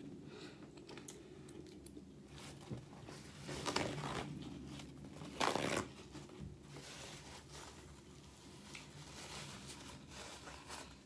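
Paper napkin rustling and crinkling as it is handled and wiped across the mouth, with the loudest rustles about four and five and a half seconds in. Soft clicks from chewing and a low steady hum sit underneath.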